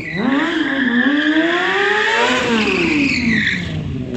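Kawasaki stunt motorcycle's engine revving up and down while its rear tyre squeals against the paving. The squeal holds steady for about two seconds, then slides down in pitch as the revs drop, and the engine is blipped sharply up again at the end.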